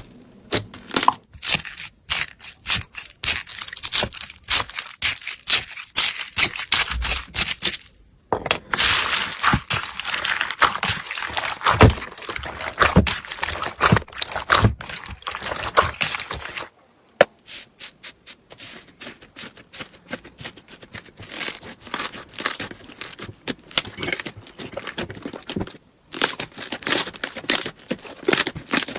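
Slime being squeezed, poked and stretched by hand, giving dense, irregular crackling and popping clicks. The sound breaks off briefly about 8, 17 and 26 seconds in as one clip gives way to the next.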